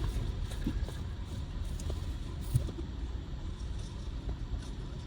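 Car cabin noise: a steady low rumble of the engine and road heard from inside the car, with a few faint small ticks.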